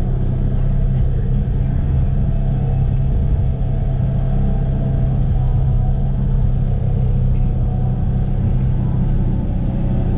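Polaris Ranger 1000 side-by-side's engine running steadily, a strong low hum that holds one pitch without revving up or down.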